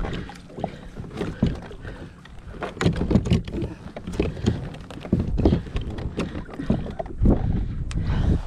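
Paddle and plastic kayak hull knocking and splashing in shallow water: an irregular run of thumps and clunks as the kayak is worked against a fin-style pedal drive stuck fast in the mud. Wind buffets the microphone.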